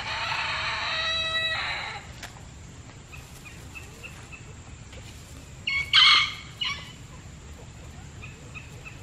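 Backyard chickens: a rooster crows once, a long held call of about two seconds at the start. Soft short clucks follow, and about six seconds in comes a loud, harsh call in three quick bursts.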